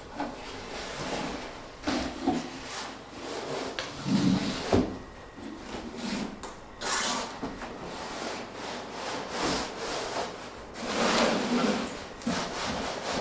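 Cardboard box and packaging being handled as a monitor is unboxed: irregular rubbing and scraping, with a sharp knock a little under five seconds in.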